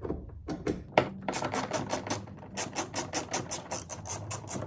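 Hand ratchet clicking rapidly as it turns out a 10 mm door-panel bolt, starting with a sharp click about a second in.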